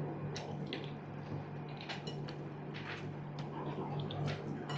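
Cutlery clinking against plates during a meal, a few short clinks about a second apart, over a steady low hum.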